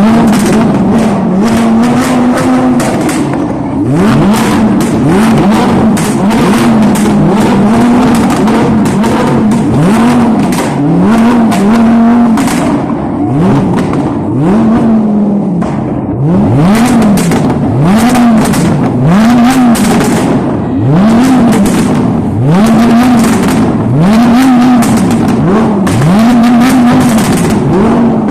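Lamborghini supercar engine being revved in quick blips over and over, about one a second, each rising in pitch and dropping back, with sharp crackles between the revs.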